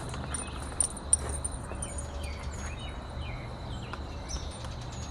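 Small birds chirping outdoors, many short calls and quick up-and-down chirps scattered throughout, over a low steady rumble. Two sharp clicks stand out about a second in.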